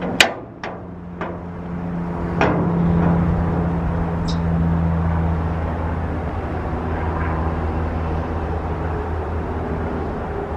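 Chevrolet Silverado 3500HD dump truck running with a steady low hum, after a few sharp clicks in the first second and a knock a little over two seconds in.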